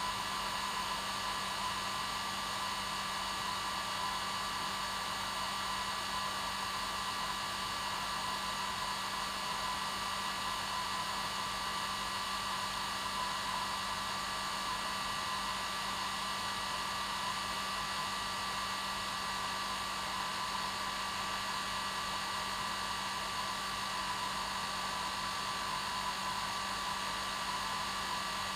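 Hair dryer running steadily: an even rush of blown air over a constant motor hum and whine, with no change in speed.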